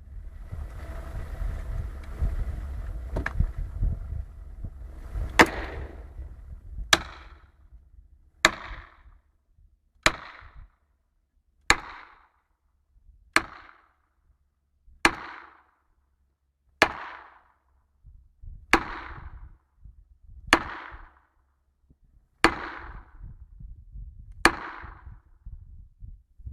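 About a dozen heavy blows struck one after another at a steady pace, roughly one every second and a half to two seconds, each leaving a short ringing tail.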